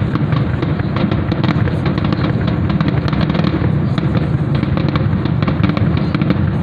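Fireworks finale: a dense, unbroken run of overlapping bangs and crackling, many reports a second over a low rumble.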